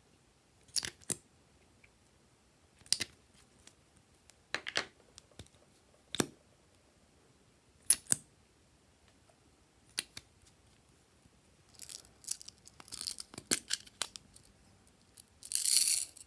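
Glossy slime being pressed and mixed, giving sharp squelching pops and crackles every second or two, a quicker run of them near the end, and then a longer squelch of about a second.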